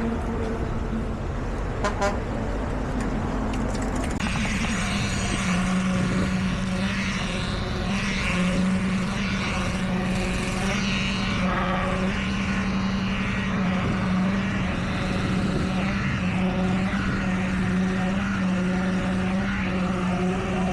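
Heavy construction machinery with a diesel engine running steadily, a constant low hum with overtones; louder, busier machine noise joins about four seconds in.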